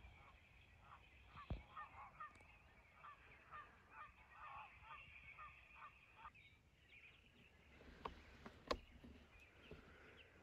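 Faint, distant crows cawing in a rapid series of short calls, fading out after about six seconds, with two sharp clicks about eight seconds in.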